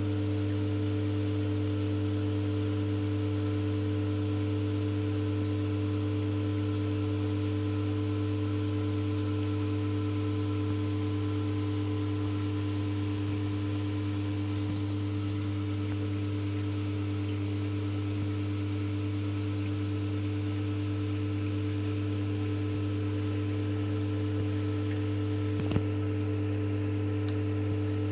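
Aquarium air pump humming steadily, with a faint hiss of air running to a sponge filter. A single short click near the end.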